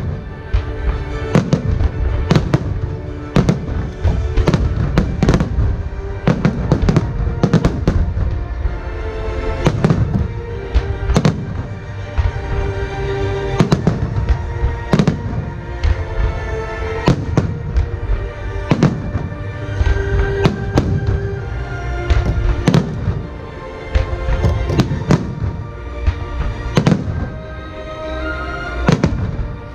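Fireworks bursting throughout, many sharp bangs at irregular intervals, sometimes in quick clusters, over music played with the display.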